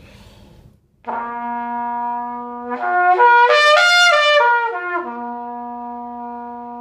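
Trumpet playing a lip slur. A held low note is slurred up through several notes of the harmonic series and back down to the held low note, with no tonguing between notes. It grows louder toward the top notes and softer on the way down. This is the soft-to-loud lip-slur exercise, where the note changes come from faster air rather than from the lips.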